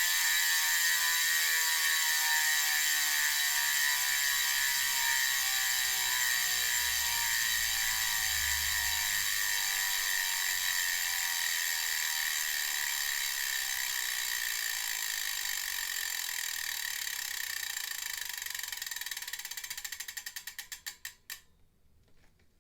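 Zipp 404 Firecrest wheel's freehub ratchet buzzing as the wheel coasts and spins down. The fast, even clicking of the pawls slows and fades until single clicks can be heard near the end, and it stops as the wheel comes to rest.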